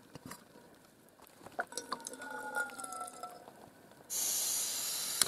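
A backpacking gas stove being fitted to a butane canister: small clicks and a faint squeak. About four seconds in the valve is opened and gas hisses steadily from the unlit burner.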